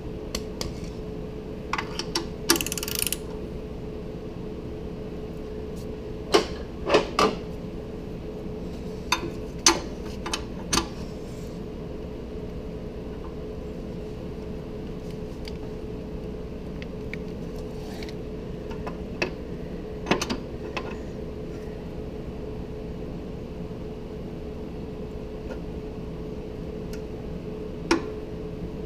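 Click-type torque wrench and socket on the exhaust manifold-to-pipe flange bolts of a Jeep's 3.8L V6, checking them at 30 foot-pounds. The sound is scattered sharp clicks and metal clinks in a few bunches with long gaps between, over a steady faint hum.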